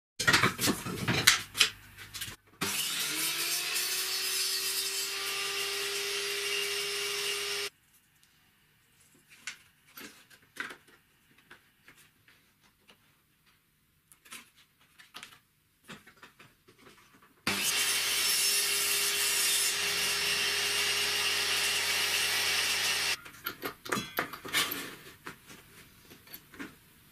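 A power tool running in two steady spells of about five seconds each, working on wood with a sawing, rubbing sound. Each spell starts with a short rise in pitch as the motor spins up and cuts off suddenly. Scattered clicks and knocks of handling come in between.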